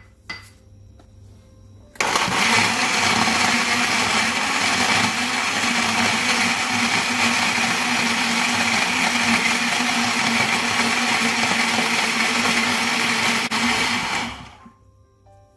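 Electric blender running on mango, milk, sugar and ice cubes, starting suddenly about two seconds in, running steadily and winding down near the end.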